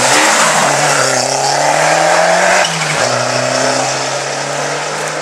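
Rally car engine at high revs under hard acceleration, its pitch climbing for about two seconds, then dropping sharply at an upshift about three seconds in and running on at high revs.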